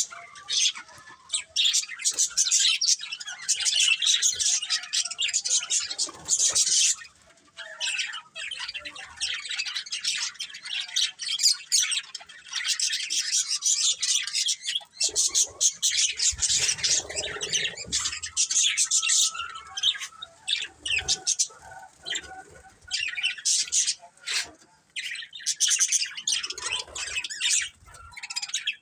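Budgerigars chirping and chattering in rapid, overlapping high-pitched calls, with a couple of short pauses.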